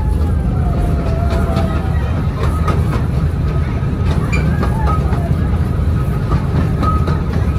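Amusement park ride train running along its track: a steady low rumble with faint clicks of wheels over the rails and a thin high tone above it.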